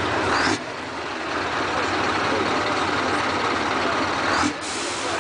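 Heavy trucks running close by, a loud steady rushing noise. It drops off suddenly about half a second in and again near the end.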